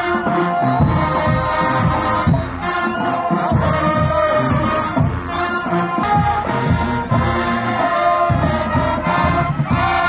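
Music with brass horns playing held notes over a steady bass beat.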